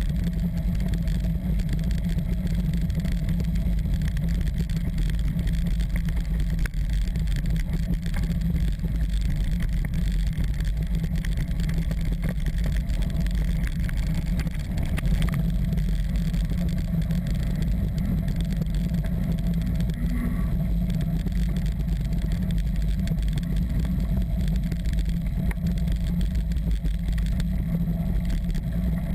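Steady low rumble of wind buffeting and tyre vibration on a mountain bike-mounted action camera's microphone while riding down a gravel forest track.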